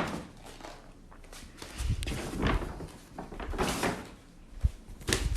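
A cat moving around inside a bag: scattered rustling and bumping, with a short dull thud near the end.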